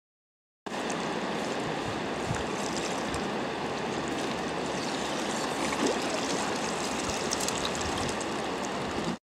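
Steady rush of fast-flowing river water, starting abruptly just under a second in and cutting off shortly before the end.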